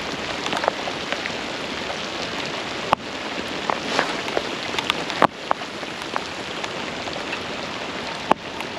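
Steady rain falling, with scattered sharp taps of individual heavier drops close by.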